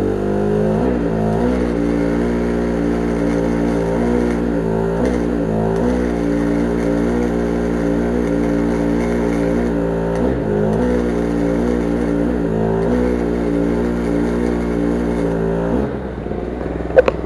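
Engine-driven welder generator running, its engine note dipping in pitch several times as it takes the load of a welding arc struck and held on metal, with the arc's hiss and crackle on top. The arc breaks off about sixteen seconds in, and a sharp click follows near the end.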